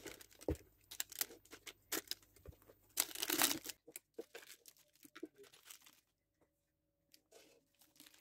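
A piping bag crinkling and rustling as stiff meringue is scooped into it, with scattered light clicks. The handling noise is busiest in the first four seconds, then thins to a few faint rustles.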